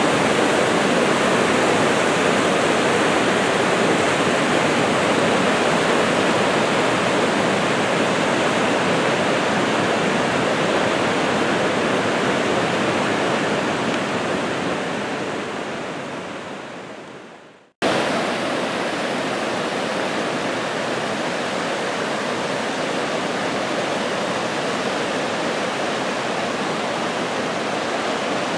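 Brook in flood, overflowing its banks: a steady rush of churning floodwater. About two-thirds of the way in the rush fades out, then cuts back in abruptly, a little quieter.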